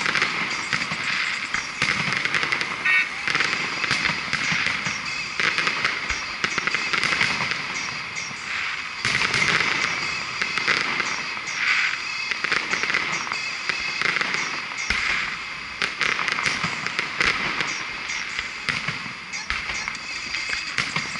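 Fireworks display: a continuous run of pops and crackles from aerial shells bursting, with a few heavier bangs in the second half.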